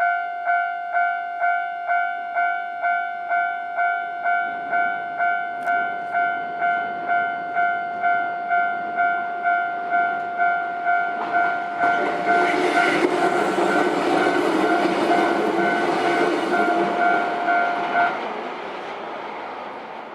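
Japanese railway level-crossing warning bell ringing steadily about twice a second. From about four seconds in, a train comes up and passes over the crossing, its wheels and running gear loudest from about twelve seconds. The bell stops about eighteen seconds in while the train sound dies away.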